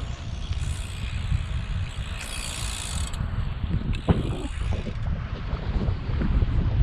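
Wind noise on the microphone during a road-bike ride: a steady low rumble, with a single sharp click about four seconds in.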